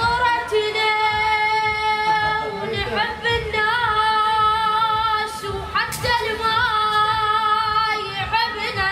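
A high voice singing long held notes with wavering, ornamented turns, pausing briefly between phrases.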